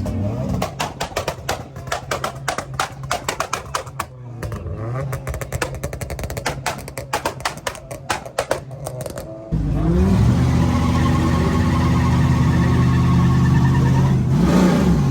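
Car engine held on a two-step launch limiter, its exhaust popping and crackling in rapid irregular bursts. About nine and a half seconds in, it jumps to a sudden loud, steady high rev that dips and climbs again near the end.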